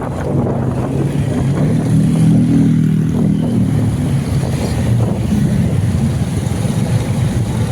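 Vehicle engine running at a steady road speed, swelling slightly about two seconds in, with wind rushing over the microphone.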